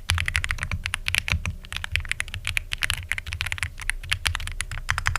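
Fast typing on a Womier SK-71 mechanical keyboard fitted with pre-lubed Otemu white switches: a rapid, unbroken run of keystrokes with a creamy sound.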